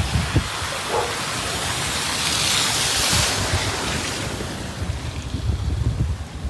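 Hurricane-force wind gusting outdoors, with a gust swelling to a loud rushing hiss about two to three seconds in and then easing, and wind buffeting the microphone.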